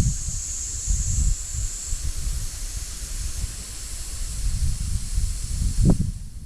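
Insects calling in a steady high-pitched chorus, over low gusty wind rumble on the microphone. A louder bump comes near the end.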